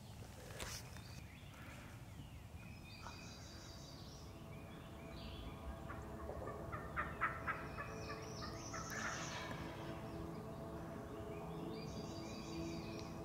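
Wild turkey gobbling: a rapid rattling gobble about three seconds in and another near the end.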